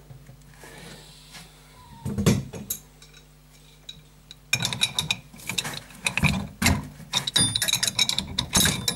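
Metal spanner working on the nut of a brass compression fitting on a water pipe, clicking and scraping metal on metal. A couple of knocks come early, then a dense run of rapid metallic clicks starts about halfway through.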